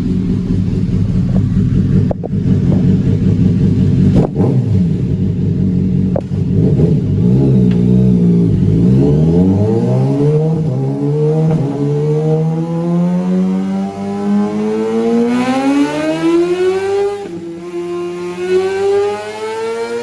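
Kawasaki ZX-6R race bike's inline-four engine on a power run, likely on a dyno: it runs steadily with a couple of sharp clicks, dips in pitch about eight seconds in, then climbs in one long, steady rise through the revs. Near the end the rise breaks off and the engine holds a steadier pitch.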